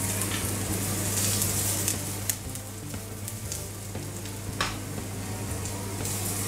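Sliced onions and carrot sticks sizzling in hot oil in a non-stick frying pan. They are stirred with a spatula, which clicks against the pan a couple of times.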